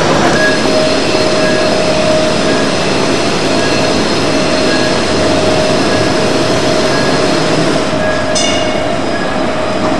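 Modern articulated tram running past close by on street track: a steady whine over the rumble of its wheels on the rails, with a short high squeal near the end.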